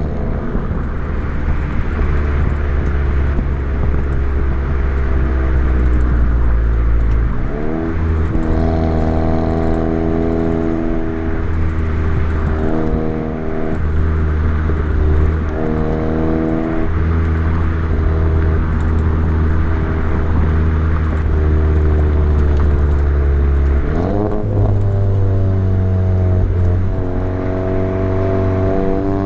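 Volkswagen MK7 GTI's turbocharged four-cylinder engine, heard through its exhaust with an aftermarket ATP downpipe, under way. The engine note holds mostly steady, its pitch climbing sharply about seven seconds in and again about twenty-four seconds in, and rising once more near the end.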